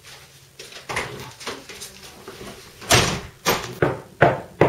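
Knocking on a door: a series of sharp knocks, about two to three a second, in the second half, after a couple of softer thuds about a second in.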